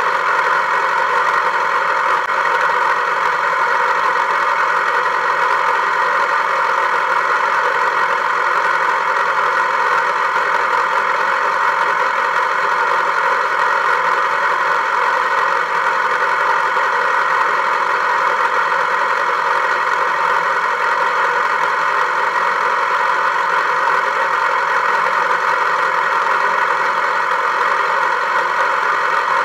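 An engine running steadily, with no change in speed or level.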